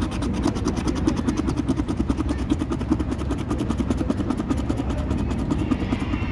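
A coin scratching the coating off a scratch-off lottery ticket, in rapid, even strokes of about ten a second.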